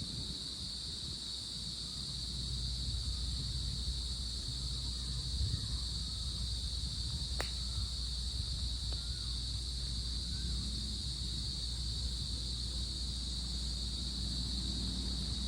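Crickets chirring in a steady, unbroken high-pitched chorus over a low rumble of wind on the microphone, with a single sharp click about seven seconds in.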